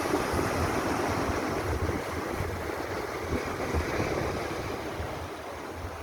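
Caspian Sea waves washing onto the beach, a steady hiss of surf that eases slightly toward the end, with wind buffeting the microphone.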